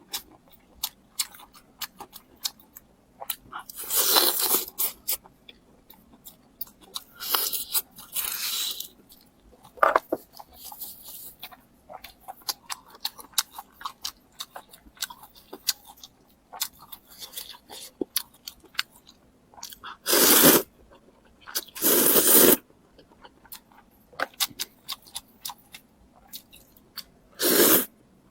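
Close-miked eating: several loud crisp crunching bites spread through the clip, with steady chewing and many small wet mouth clicks between them.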